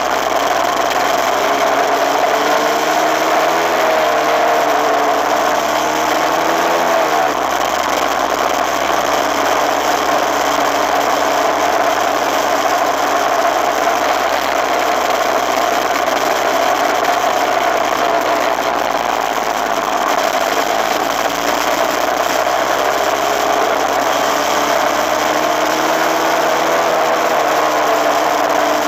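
Suzuki RMX250S single-cylinder two-stroke dirt bike engine running under way, heard from a handlebar-mounted camera with a steady rush of wind noise. The engine pitch climbs for several seconds and drops about seven seconds in. It sags again past the middle and rises once more near the end as the throttle changes.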